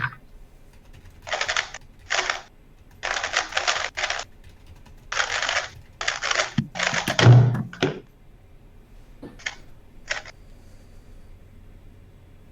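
Speedcube being turned in quick bursts of rapid clicking, several runs of turns separated by short pauses, with a low thump about seven seconds in.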